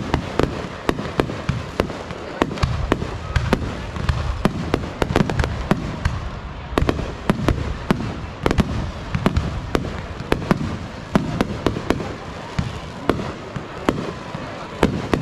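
Fireworks display: a dense, continuous string of sharp bangs and crackles, several a second, over a low rumble.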